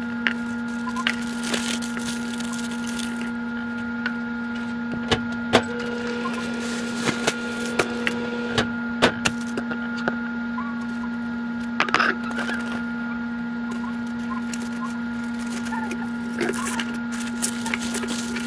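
A steady electrical hum under scattered taps and knocks as a burrito is pressed and rolled on a countertop by hand. Aluminum foil crinkles near the end as it is wrapped around the burrito.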